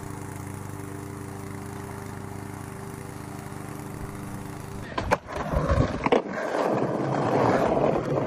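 A petrol walk-behind lawn mower's engine running steadily for about five seconds. Then, louder, a skateboard rolling on paving stones, with a few sharp clacks of the board.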